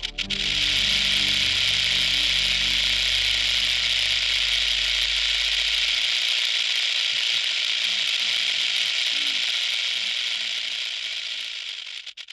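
Rattlesnake's tail rattle buzzing in one steady, continuous hiss-like buzz, the snake's warning signal; near the end it breaks into separate pulses and dies away.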